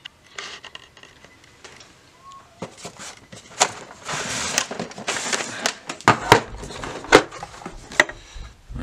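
Handling noise of a plastic cassette storage box being picked up, moved and opened: rustling, with scattered clicks and a few sharper knocks and clacks toward the end.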